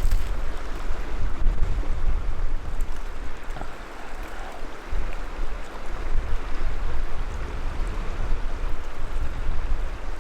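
Wind blowing across the microphone: a steady rushing noise with a gusty low rumble that dips briefly about four seconds in.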